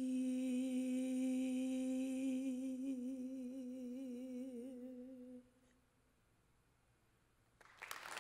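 A woman's singing voice holds the song's final note, one long note with a slow vibrato, fading out about five seconds in. After a brief hush, audience applause breaks out near the end.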